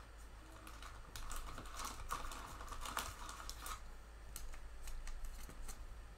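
Faint rustling with scattered light clicks as a trading card and a clear plastic sleeve are handled in gloved hands.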